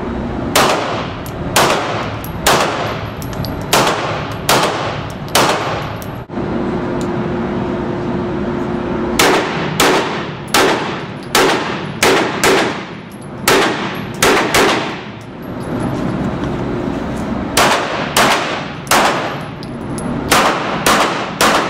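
Handgun shots fired in quick strings at an indoor range, about twenty in all, each with a short echo off the hard walls. There are pauses of a few seconds after about six seconds and again around fifteen seconds.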